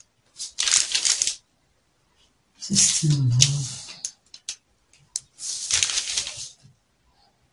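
Pattern paper and a tape measure rustling and scratching as they are handled and marked with a felt marker, in three bursts of about a second each with a few light taps between.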